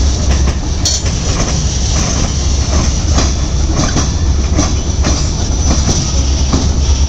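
Freight train cars rolling past, a steady low rumble with repeated clickety-clack of the wheels over the rail joints.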